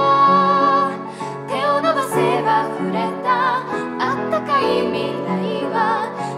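A solo voice singing Japanese lyrics with vibrato over a piano accompaniment.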